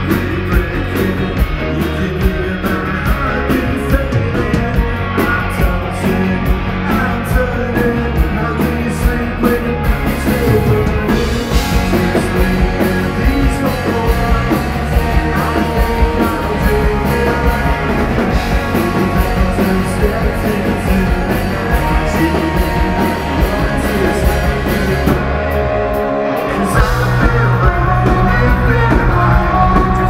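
Live rock band playing loud: electric guitars over a drum kit keeping a steady beat. Near the end the band drops out for a moment, then comes back in louder.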